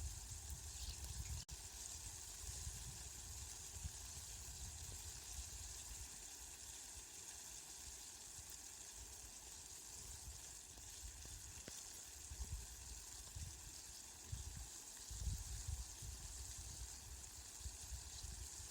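Steady rain falling, an even hiss, with low rumbling that swells and fades beneath it.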